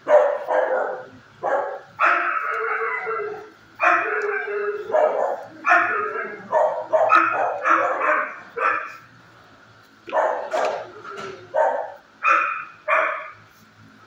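Shelter dogs barking in repeated loud bursts, with a brief lull about nine seconds in before the barking starts again.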